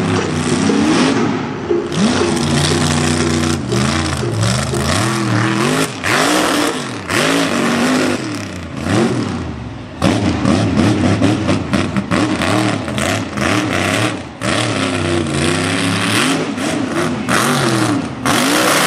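Mega mud truck's engine revving hard again and again, its pitch rising and falling, while its huge tyres spin and sling mud.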